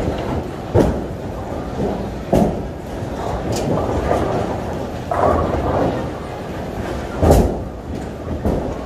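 Bowling alley noise: a steady low rumble of bowling balls rolling down the wooden lanes, broken by several sharp crashes of balls hitting pins, the loudest about seven seconds in.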